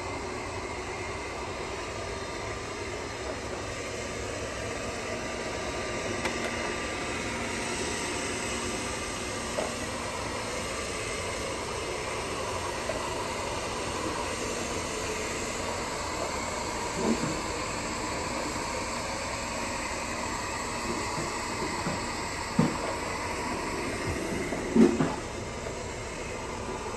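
Roomba robot vacuum running, a steady motor and brush hum with a faint whine. Three short knocks come in the second half, the last and loudest near the end.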